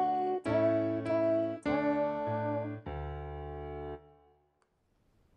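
Computer playback of a slow bass-clef melody from a notation score: even pitched notes about 0.6 s apart, the last one held longer and stopping about four seconds in.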